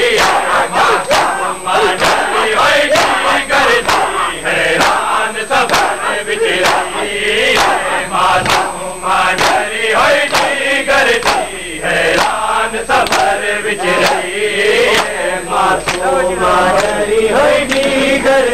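A crowd of men chanting a noha, a mourning lament, in unison, kept in time by the steady, even beat of hands striking chests in matam.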